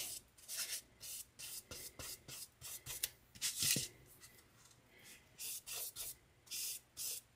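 Short scratchy rubbing strokes of a small applicator brushing Mod Podge over napkin tissue on a cake dummy, irregular, one to three a second, with a brief lull about four seconds in.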